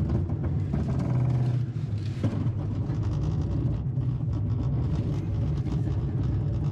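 Nissan Armada's 5.6-litre V8 running steadily under heavy load at low revs as the SUV claws through deep ruts with traction control off, with a single knock about two seconds in.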